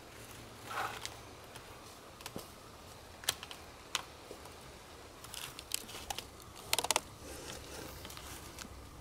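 Handwork on a log shelter wall: scattered sharp clicks and small knocks of wood and cord being handled, with some rustling scrapes and a quick cluster of clicks about seven seconds in.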